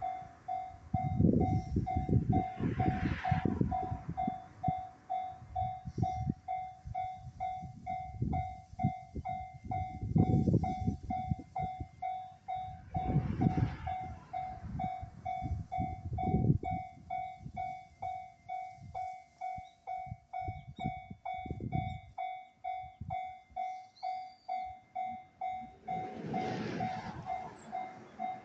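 Japanese level-crossing warning bell ringing steadily, about two strikes a second, while a freight train rolls slowly over the crossing with irregular heavy wheel thuds and rumble. The train noise fades out about three quarters of the way through, leaving the bell ringing on.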